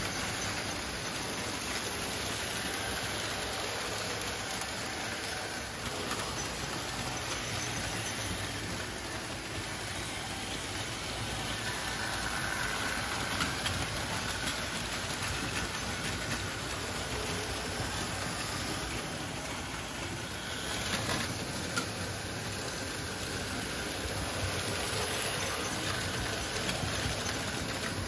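Märklin HO model trains running on the layout: a steady whirr of the small locomotive motors and wheels on the track, with a few light ticks.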